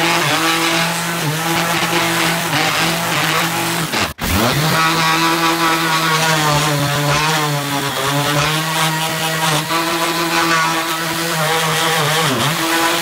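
Bosch random orbital sander running against wood, a steady motor whine with sanding hiss. Its pitch wavers slightly midway, and the sound cuts out for an instant about four seconds in.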